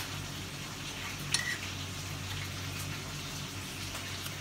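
A knife clinking once against a ceramic plate about a second in, a short ringing tick, with a few faint clicks of chilies and spice being handled, over a steady low hum.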